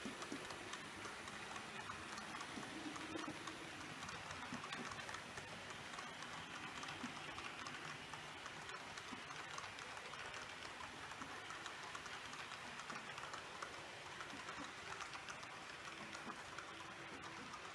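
H0-scale model passenger train rolling past on the layout's track: a faint, steady rattle of many small wheels with fine rapid clicking over the rail joints.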